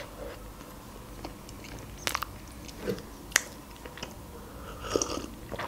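Close-miked eating sounds of a soft, iced cinnamon roll being chewed: quiet wet mouth noises with a few sharp lip smacks and clicks, and a short sip from a mug near the end.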